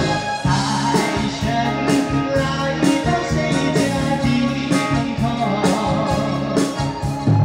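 Live male vocal singing a festive Chinese New Year pop song over a backing track with a steady beat and guitar, played loud through a stage PA.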